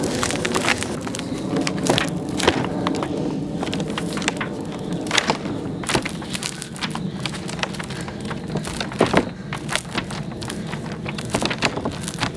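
Large stone rocked and pressed down on a wooden board with paper, used as a makeshift printing press for a drypoint print: irregular sharp cracks and knocks over a steady low hum.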